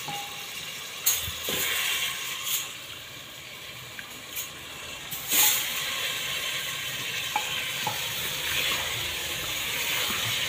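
Vegetables sizzling in hot masala in an aluminium pressure cooker, a steady frying hiss. In the first few seconds there are several sharp knocks as chopped potato pieces are tipped in.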